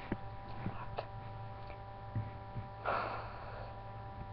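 Steady electrical hum from a webcam microphone, with a few faint clicks and a single breath about three seconds in.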